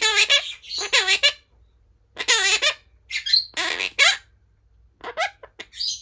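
Monk parakeet talking: a run of short speech-like phrases mixed with squawky calls, about six bursts with short pauses between them.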